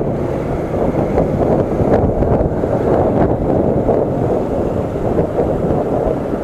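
Wind buffeting an action camera's microphone on a moving electric scooter: a loud, steady, low rumble, with some road traffic in it.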